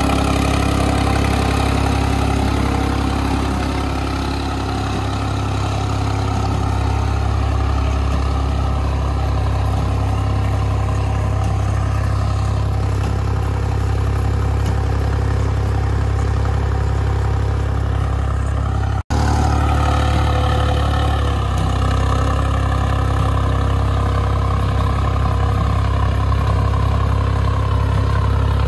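New Holland 5620 tractor's diesel engine running steadily, easing off slightly about four seconds in. The sound cuts out for an instant about nineteen seconds in, then the engine carries on.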